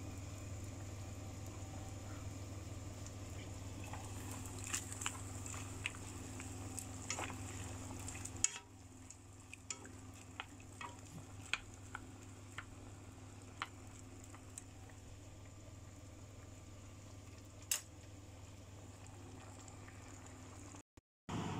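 Flat noodles cooking in a pot of simmering broth, with scattered small pops and clicks over a steady low hum. About eight seconds in the hum drops away suddenly, leaving fainter, sparser clicks.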